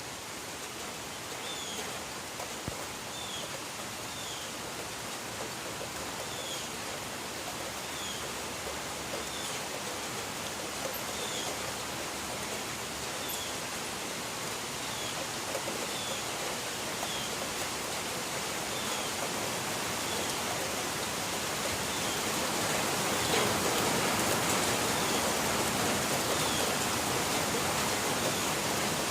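Steady rainfall, an even hiss that swells heavier about two-thirds of the way through. A short, high, falling chirp repeats roughly once a second over the rain.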